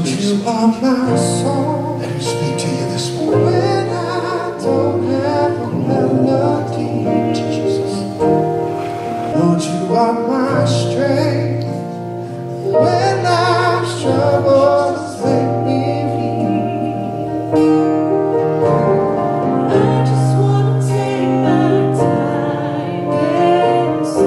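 Live church worship band playing a song with singing, with guitar, keyboard and drums.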